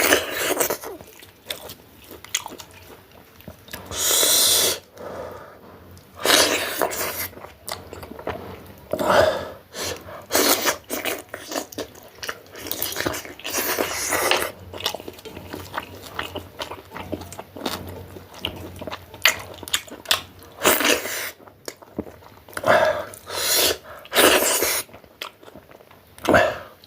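Close-miked eating of maize dhido and chilli: wet chewing and smacking throughout, broken by several loud breathy hisses.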